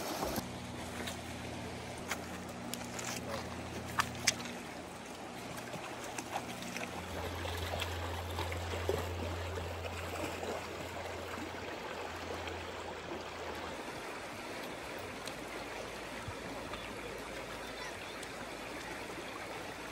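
Steady rush of running stream water. A low steady hum sits under it for about the first two-thirds, and there are two sharp clicks about four seconds in.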